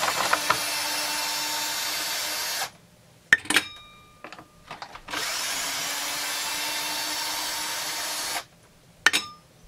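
Bosch cordless drill/driver with a long Allen bit backing screws out of a Husqvarna 350 chainsaw. It runs as a steady whine for about three seconds, then again for about three seconds from the middle. A sharp, ringing metallic clink comes between the two runs, and another comes near the end.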